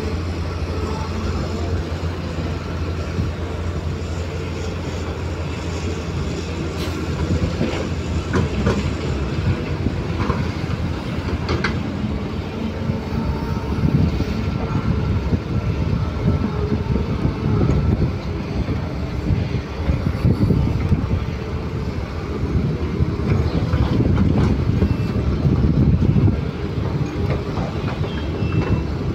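Diesel engine of a Liebherr crawler excavator running as it loads soil into a steel tipper truck bed, the engine surging under load as the hydraulics work, with a few sharp knocks and clatter of earth and stones landing.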